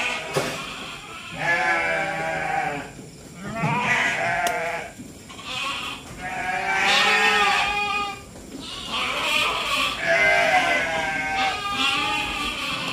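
Sheep bleating repeatedly: a series of long, quavering bleats, one after another, from a flock walking in single file.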